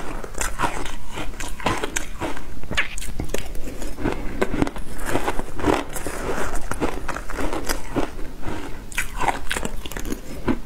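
Frozen ice chunks being bitten and chewed, a close run of sharp, crackling crunches one after another.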